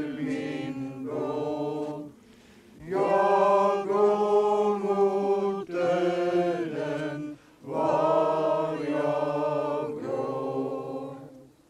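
A congregation of men and women singing a hymn together from hymn books, in slow, held phrases with short breaths between them.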